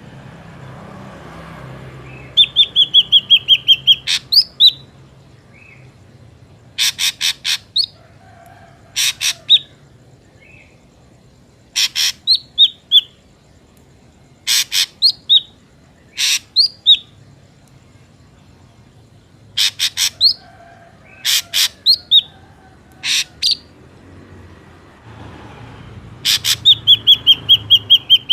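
Drongo calls used as a trapping lure. A quick run of ringing notes opens, then come repeated groups of three to five harsh, buzzy notes, each followed by a couple of short rising whistles. The quick ringing run returns near the end.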